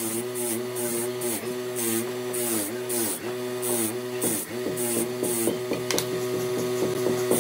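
Electric motor driving a wire wheel: its steady hum sags briefly about twice a second as an angle grinder housing is pressed against the wire brush, each press a short scratchy rasp. For the last couple of seconds the wheel spins freely with a steady hum, with one sharp click about six seconds in.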